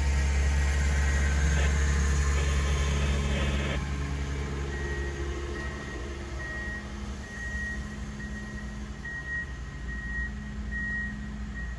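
Diesel engine of a rail maintenance-of-way machine running, loud at first and then dropping off after about four seconds. A backup alarm starts beeping about five seconds in, short even beeps a little under a second apart.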